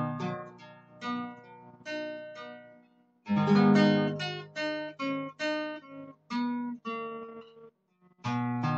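Solo acoustic guitar playing. Strummed chords are broken up by single picked notes, with a louder strum a little past three seconds in and a brief pause near the end.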